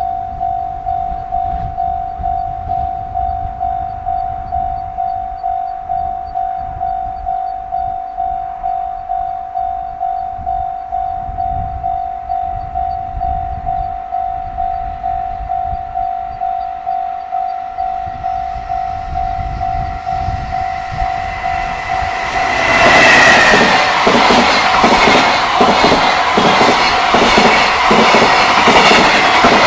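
Japanese level-crossing warning bell ringing as a steady pulsing electronic tone. About 22 seconds in, a long container freight train reaches the crossing and passes close by, much louder, with the rhythmic clickety-clack of wheels over rail joints while the bell keeps ringing.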